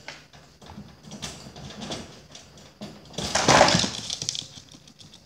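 A Pomeranian's claws scrabbling and clicking on a wire exercise pen as he climbs, then a loud clattering rattle of the pen about three seconds in as he goes over the top and drops to the floor.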